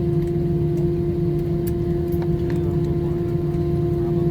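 Steady cabin drone of an Airbus A321 on the ground after landing: an even low rumble under a constant pitched hum, with a few faint clicks.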